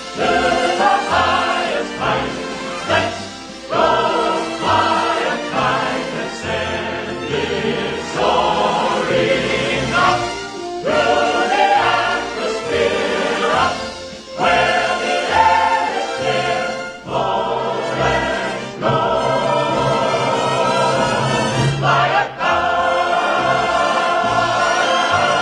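Film score music: a choir singing with an orchestra.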